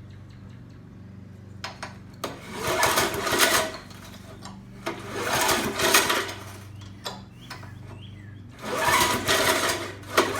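Briggs & Stratton Classic 3.75 HP mower engine pulled over three times on its recoil starter cord, spinning without firing. The spark plug is out and grounded against the block for a spark check. A steady low hum runs underneath.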